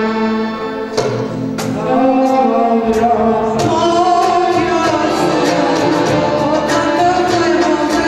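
Female solo voice singing a Turkish art music song, accompanied by violins and accordion; the voice comes in after a short instrumental phrase, about two seconds in.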